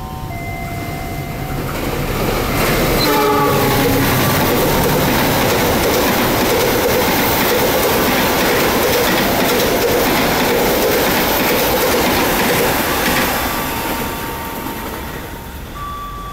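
A CC206 diesel-electric locomotive and its express passenger coaches running through the station at speed without stopping. A short horn blast about three seconds in drops in pitch as the locomotive passes, then the coaches rush and clatter over the rail joints for about ten seconds before fading away near the end.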